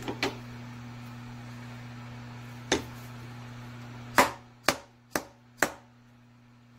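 A soft-faced mallet taps a steel block down in a milling-machine vise to seat it: a tap near the start, one near the middle, then four in quick succession about two a second. A steady low hum runs underneath.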